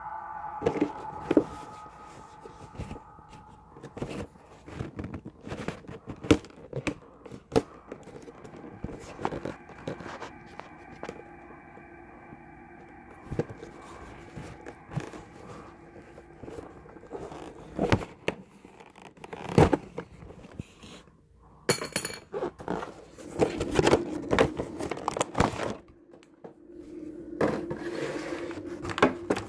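Action figure packaging being cut and pulled open with a knife: irregular scrapes, clicks and crinkling of cardboard and plastic, with a few sharper knocks.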